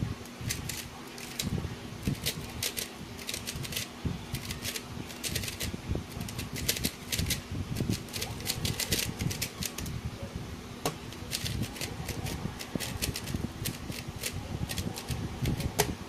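A GuoGuan Yuexiao 3x3 speedcube being turned rapidly during a timed solve: a fast run of plastic clicks and clacks. The turning breaks off for about a second and a half past the middle, then starts again.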